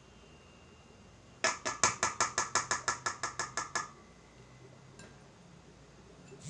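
Metal wire whisk clinking rapidly as cookie dough is knocked and scraped off it over a stainless steel bowl. About fifteen quick metallic clicks come at roughly six a second, starting a second and a half in and fading over about two seconds.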